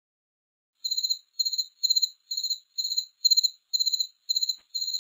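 Cricket chirping: a string of about nine short, high-pitched chirps, each a quick trill of pulses, about two a second, starting about a second in.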